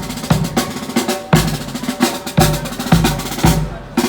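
Music led by drums: a steady beat of heavy drum hits with deep bass thumps, roughly two a second.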